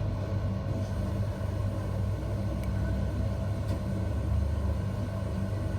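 A motor running steadily, with a low hum and rumble and no change in speed, from equipment at work clearing a blocked drain pipe.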